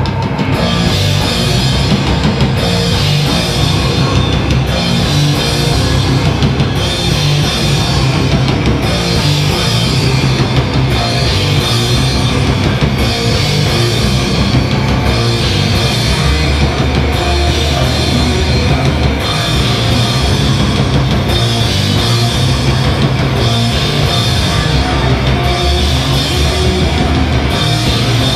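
Live heavy rock band playing loud: electric guitars over a driving drum kit with heavy low end, heard from within the audience in a small club.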